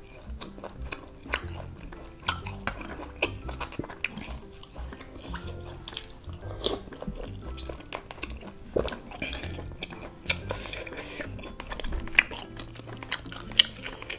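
Metal spoon and fork clinking and scraping against a bowl as they cut through soft tapioca meatballs in broth, with chewing between the clinks. Background music plays under it.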